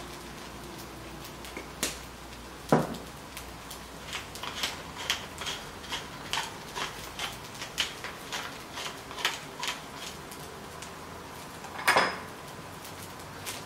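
Wooden pepper mill being twisted to grind pepper: a run of short, regular clicks, about two or three a second, lasting several seconds. A sharp knock comes before the grinding and another near the end.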